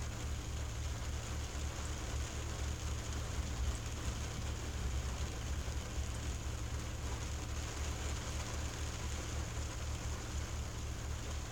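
Steady rain falling on a car windshield, heard from inside the car, over a steady low rumble.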